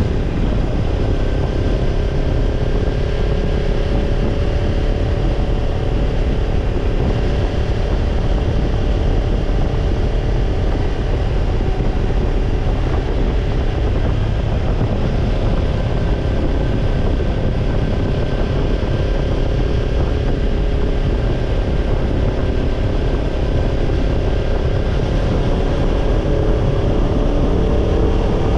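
Kawasaki Ninja 250's parallel-twin engine running through a BEET Nassert Evolution Type II titanium slip-on muffler, holding a steady cruise with only slight rises and falls in pitch, over steady wind noise.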